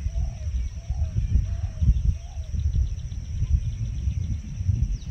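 Outdoor rural ambience dominated by an uneven low rumbling noise. A bird repeats a short call roughly every half second until about halfway through, over a steady high-pitched insect drone.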